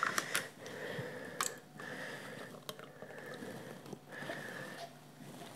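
Natural yogurt being scooped out of a plastic cup into a blender jar: faint wet squishes with a few light taps and clicks.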